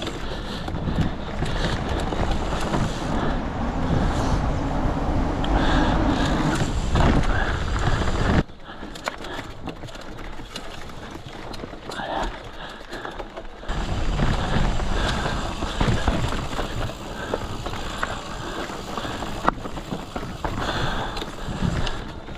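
Mountain bike ridden along a dirt trail, heard from a GoPro: wind rush on the microphone with tyre rumble and rattling over the ground. It drops abruptly quieter about eight seconds in and picks up again some five seconds later.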